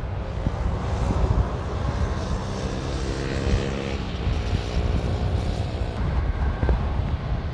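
Airbus A350-1000's Rolls-Royce Trent XWB-97 turbofans at taxi power: a steady jet rumble and hiss, with a hum of several steady tones coming through in the middle.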